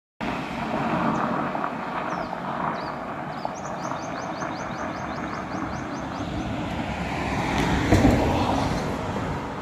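Road traffic noise running steadily, swelling as a vehicle passes about eight seconds in. A quick run of high chirps sounds through the middle.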